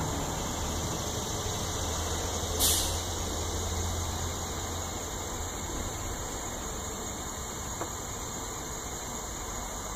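Laser engraver running a burn: a steady whir of its cooling fan and stepper motors driving the turntable, with a low hum that fades out around the middle. A brief hiss about three seconds in.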